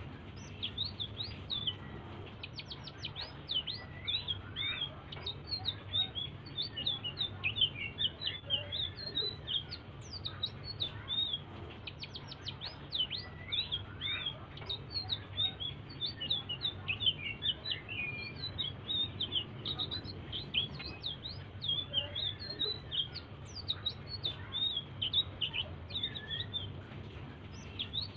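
A selendang biru songbird singing continuously in soft, fast twittering phrases of high chirps and quick downward whistles, over a steady low hum.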